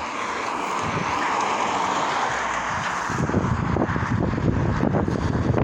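A vehicle passing on the street, its tyre and road noise swelling and fading over about three seconds, then wind buffeting the microphone.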